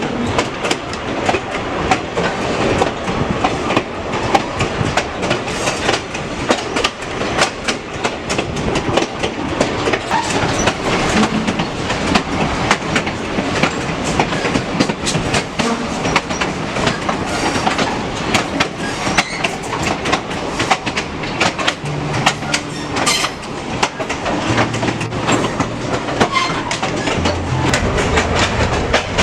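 Excursion train rolling along the track, heard from on board: a steady rumble with the wheels clicking irregularly over the rail joints.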